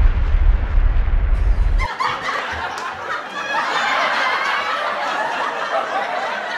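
A deep explosion rumble, the sound effect of a volcano eruption, cuts off about two seconds in. A group of children then laughs and snickers.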